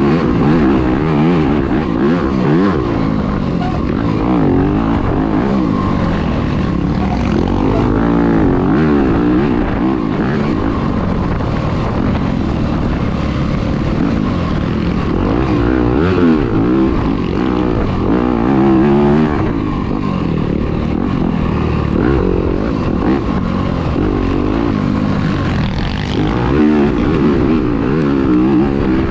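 Off-road dirt bike engine under race riding, its pitch rising and falling again and again as the throttle is worked through the woods, heard from a camera mounted on the rider or bike.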